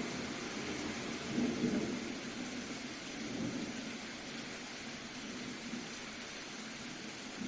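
Soft steady rain falling, an even hiss, with low rumbling swells about one and a half and three and a half seconds in.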